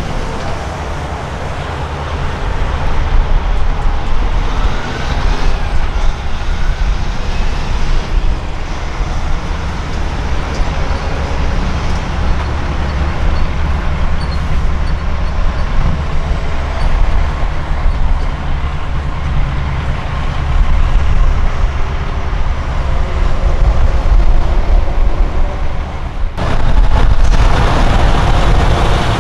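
Diesel semi-trucks, Peterbilts among them, driving slowly past one after another, a steady low engine rumble. Near the end the sound changes abruptly as it cuts to another passing truck.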